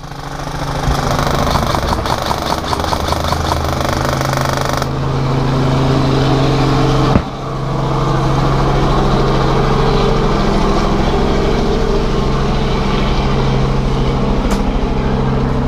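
A motor vehicle's engine running steadily and loud. A quick run of rapid ticks comes between about two and five seconds in, and the engine briefly dips about seven seconds in.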